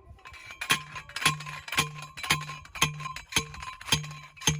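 Steel fence post being pounded in with a manual post driver: eight even metallic clangs, about two a second, each with a short ring.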